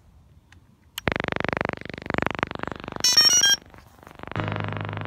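DJI Phantom 3 quadcopter starting up: a click, then loud buzzing for about two seconds, then a short run of electronic start-up beeps at different pitches. From about four seconds in, its motors start and the propellers spin at idle with a steady hum.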